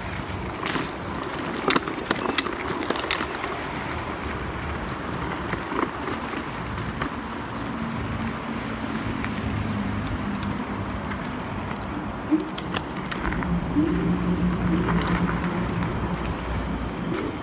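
Dualtron Ultra electric scooter ridden over a rough dirt trail: a rattle of sharp knocks over bumps in the first few seconds, then a steadier rolling rumble with a low hum that grows louder near the end.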